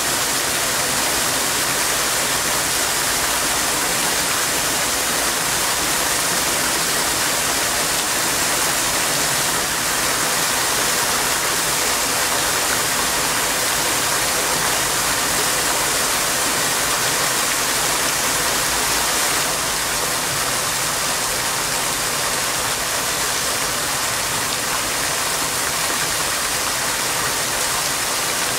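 Fountain water jets splashing down into a shallow basin: a steady, even rushing splash that eases slightly about two-thirds of the way through.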